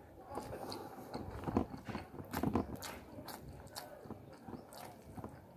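Close-miked eating sounds of a person chewing a mouthful of rice eaten by hand: an irregular run of sharp clicks and smacks, loudest around two seconds in.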